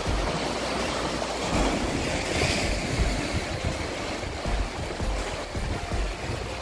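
Sea waves breaking and washing over shoreline rocks, a steady surf with one stronger wash about two and a half seconds in, and wind rumbling on the microphone.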